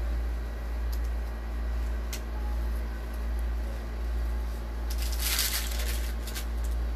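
A steady low machine hum that swells and eases about once a second, with a brief rustle about five seconds in.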